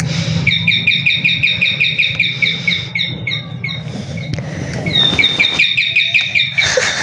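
Electronic doorbell playing a bird-chirp tune: a fast, perfectly even run of identical twittering chirps, heard twice with a pause of about two seconds between.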